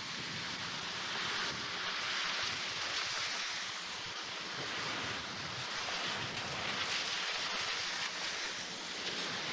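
Strong wind rushing, a steady noise that swells and eases every couple of seconds.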